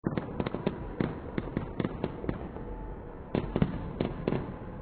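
Fireworks display going off: a rapid run of sharp bangs over a continuous low rumble, a short lull about two and a half seconds in, then a few more bangs.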